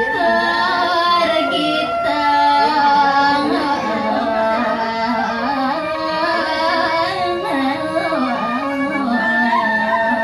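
A woman sings a Balinese tembang, a geguritan verse, solo into a microphone. The melody is slow and ornamented, with long held notes that waver and slide in pitch.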